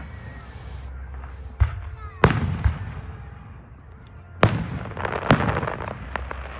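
Fireworks going off: a hiss at the start, then a series of sharp bangs, the loudest about a second and a half, two, four and a half and five seconds in, with crackling after the last.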